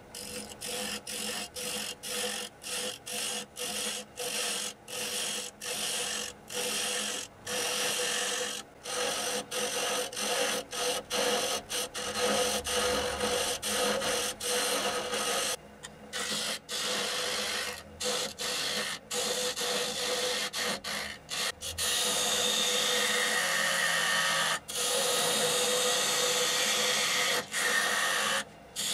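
Wood lathe turning a spinning block of wood while a hand-held turning tool cuts into it. The cutting comes in many short passes with brief pauses, then in longer unbroken cuts in the last third, over the lathe's steady hum.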